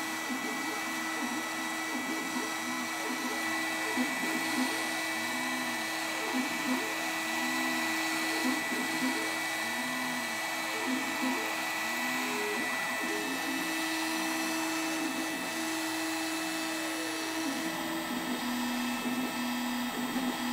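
X-Carve CNC router running while carving ice: the spindle gives a steady high whine, and the stepper motors whir in a pitch that rises and falls over and over as the bit traces curves. The machine's tone settles lower near the end.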